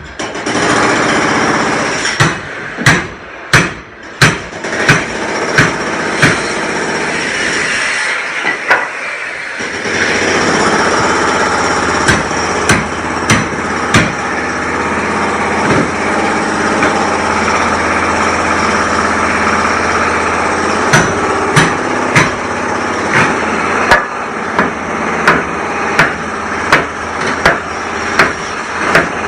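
Construction-site noise: a hammer striking repeatedly, about one or two blows a second, over the steady drone of a running machine engine that drops away briefly near the middle and comes back.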